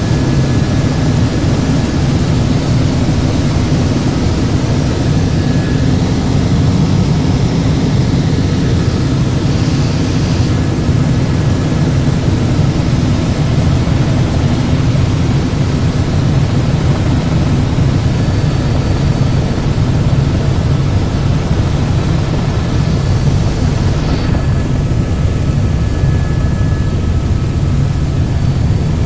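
Helicopter in flight: a loud, steady drone of engine and rotor with a faint, constant high whine above it.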